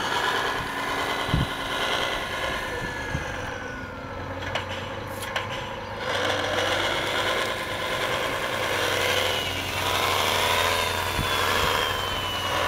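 Radio-controlled scale truck crawling over loose shale: its motor and gearbox whine under load, the whine gliding slowly down in pitch, with a few sharp clicks of stones.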